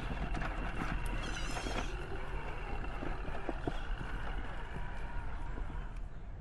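Tamiya CR-01 RC crawler's electric motor and gearbox running with a steady thin whine, with scattered knocks and clatter as the truck lurches over roots.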